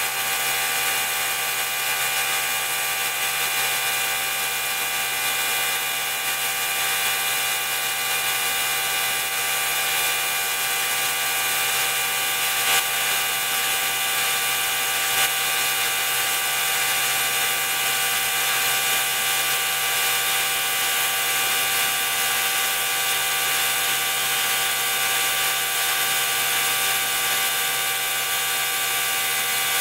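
Gravity-feed air spray gun hissing steadily while spraying clear coat onto a wheel, with a steady multi-tone mechanical whine underneath. Two brief clicks come near the middle.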